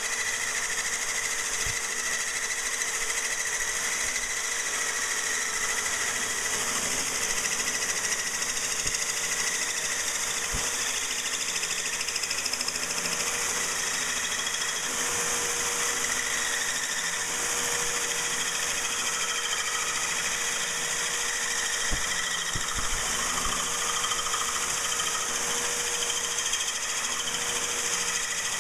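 Corded electric drill running a diamond-coated hole saw through aquarium glass under a stream of hose water, a steady whine and grinding that holds unchanged as the bit works through the glass.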